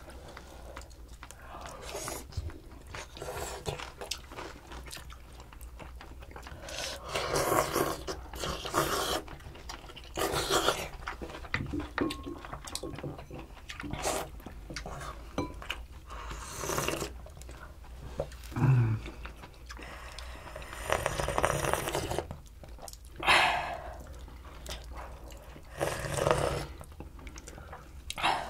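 Several people eating pollack stew: slurping broth from spoons and bowls and chewing, in short noisy bursts every couple of seconds, with scattered light clicks of spoons and chopsticks against dishes.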